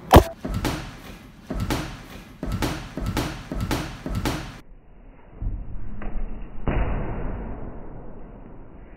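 A sharp loud knock, then a run of irregular thuds and slaps about one or two a second, the sound of boxing gloves landing during sparring. Heavier, duller thuds come in the second half and fade off.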